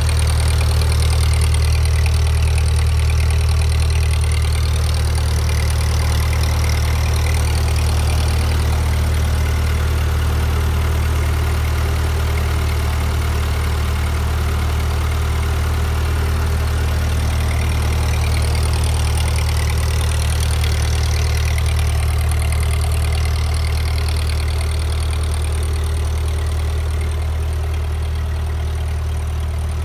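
1943 Ford tractor's four-cylinder flathead engine idling steadily.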